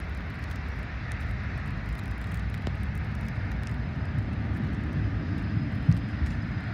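Steady low rumble of vehicle noise with a hiss above it, and a brief knock about six seconds in.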